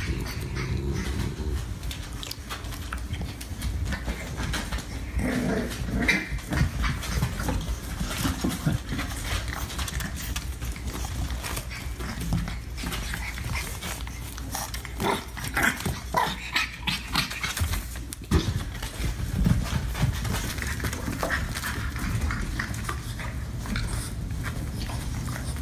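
Puppies playing, with scattered short dog sounds and scuffling over a steady low hum.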